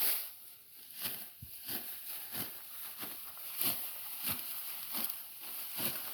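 A sharp sickle cutting through dry, mature rice stalks by hand: a series of short, irregular cutting strokes, roughly one every half second to second.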